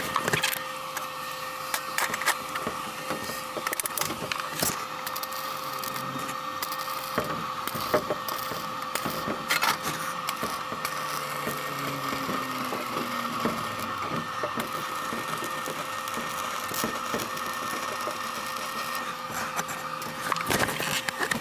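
Stick (arc) welding with a SUZUKID Sticky 140 welder on thin steel plate: the arc crackling and sizzling steadily over a constant hum, with the crackle coming thicker near the start and the end.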